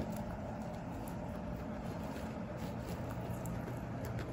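A guinea pig chewing hay, faint scattered crunching nibbles over a steady low hum. A single sharp click comes right at the start.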